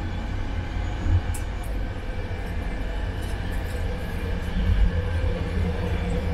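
Steady low rumble of a sleeper train carriage running, heard from inside its small toilet compartment, with a few faint knocks.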